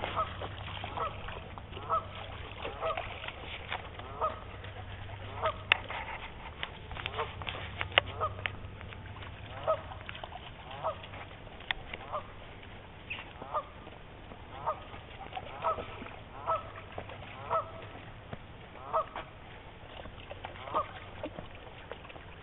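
Geese honking over and over, short calls about one or two a second. A few sharp clicks come between about five and eight seconds in.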